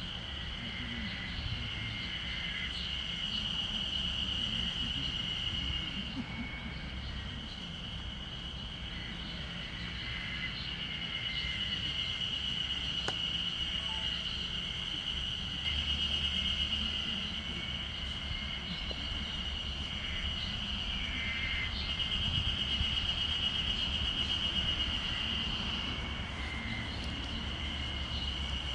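Chorus of Ezo spring cicadas (Terpnosia nigricosta) buzzing steadily at a high pitch, swelling and easing in waves.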